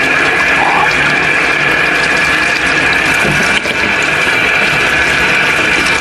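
Kitchen tap running steadily into a stainless steel sink while baby-bottle parts are rinsed under the stream, with a brief break about three and a half seconds in.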